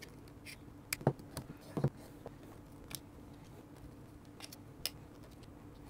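Small hand cutters snipping into the Lytro camera's rubber-covered case: a few faint, sharp snips and clicks, the strongest about a second in and near two seconds, then lighter clicks of the camera being handled.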